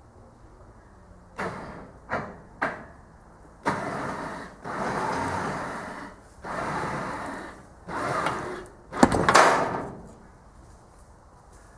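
An old boat being dragged under strain: a series of scraping, creaking pulls, then a sharp crack with the loudest burst about nine seconds in as a part of the boat gives way.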